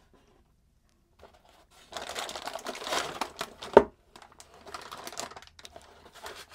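Anti-static bag crinkling and rustling as a wrapped graphics card is lifted out of its foam-lined box, starting about two seconds in. One sharp knock, the loudest sound, comes just before the four-second mark, and lighter, scattered crinkling follows.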